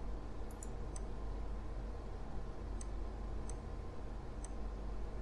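Computer mouse button clicks: a quick pair and a single click within the first second, then three more spaced about a second apart, over steady low background noise.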